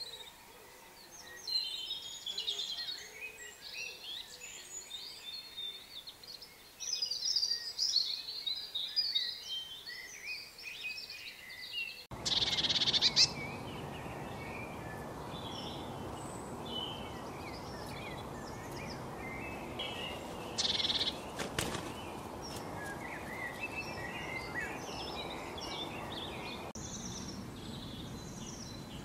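Small songbirds chirping and singing in many short, overlapping phrases. About twelve seconds in, a steady outdoor hiss comes up under the calls.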